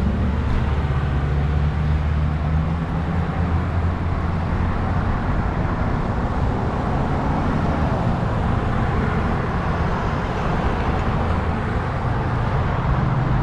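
Steady road traffic and riding noise heard from an e-bike moving along a sidewalk beside a busy street, with a constant low hum and no sudden sounds.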